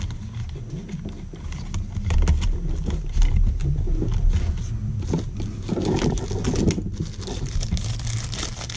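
Small clicks and scrapes as a duplex outlet and its wires are pushed into a plastic electrical box extender by hand.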